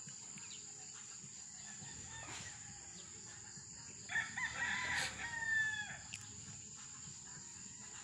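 A rooster crowing once, about four seconds in, for roughly two seconds, over a steady high-pitched insect drone.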